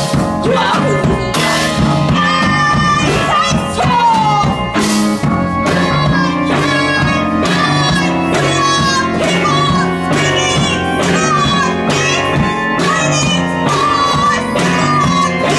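Live band playing loud, with drum kit, cymbals and electric guitar, and a singing voice in the mix.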